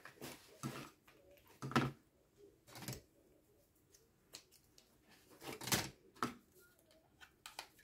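Scattered soft clicks, taps and rustles of craft tools and canvas being handled on a cutting mat, with a cluster of louder handling noises about two-thirds of the way through.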